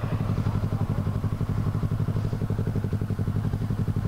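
Motorcycle engine idling at low revs with a steady, even pulse.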